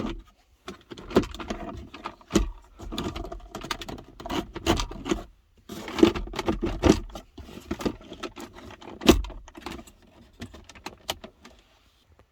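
Plastic interior trim around a car's glove box and centre console being handled and worked loose: an irregular run of clicks, knocks and scraping, with a few louder knocks and the handling growing sparser near the end.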